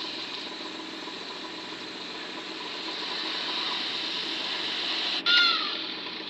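Steady mechanical hum of an idling vehicle engine. About five seconds in it breaks off, and a short, falling, voice-like cry follows.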